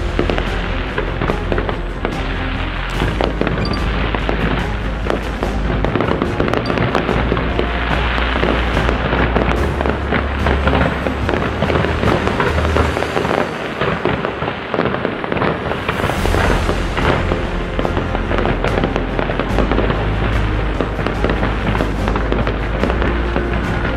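Aerial fireworks bursting and crackling in a dense, continuous barrage, with music and a steady bass line playing underneath.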